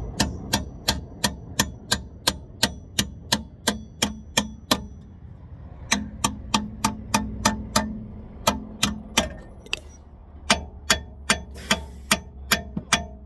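Steady, sharp metal-on-metal hammer blows, about three a second, driving the old rear wheel bearing out of the hub with a socket. The blows pause briefly twice.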